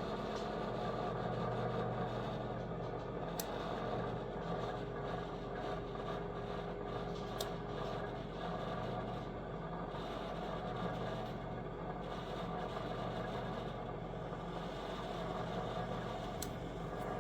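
Fabuletta 10-in-1 air fryer toaster oven running, its convection fan giving a steady hum with a few faint ticks. The owner feels the fan vibrating the whole unit and takes it to be out of balance.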